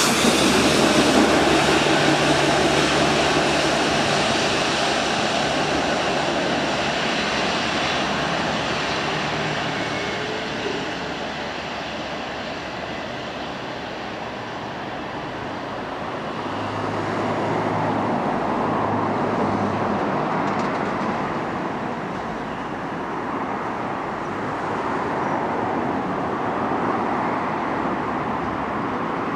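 A train running through the station, its noise loudest at the start and slowly fading, then swelling again about halfway through, with a low steady hum under it.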